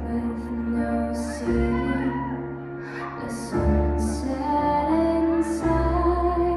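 Slow waltz music playing over the ballroom's sound system, with held notes over a deep bass note that changes about every two seconds.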